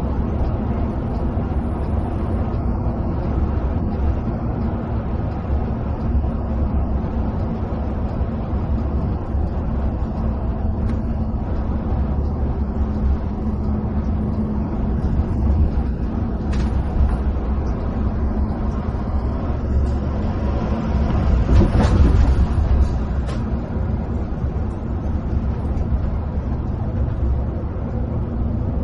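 Steady drone of an intercity coach's engine and tyre roar heard from inside the cabin while cruising on the highway. It swells louder for a couple of seconds about three-quarters of the way in, with a few faint clicks over it.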